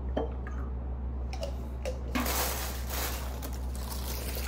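A light sheet of material rustling and crinkling close to the microphone for about two seconds in the second half, after a few light clicks, over a steady low room hum.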